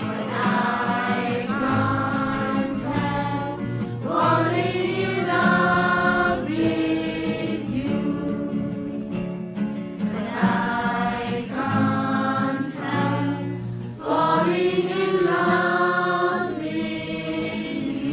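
Music: a slow sung melody with choir-like vocal harmony, in long held phrases.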